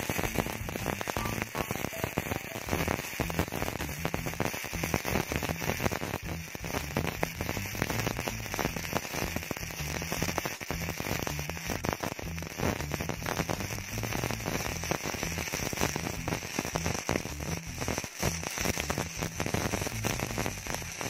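MIG welder arc crackling and sizzling steadily as a zigzag bead is run over an earlier straight weld.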